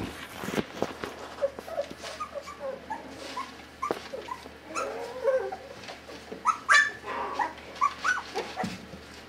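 A litter of four-week-old puppies playing together, giving many short, squeaky cries and small barks that overlap. The loudest cry comes about two-thirds of the way through.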